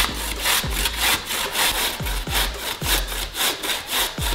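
A zucchini being grated on the coarse side of a stainless steel box grater: an even run of rasping strokes, about three a second.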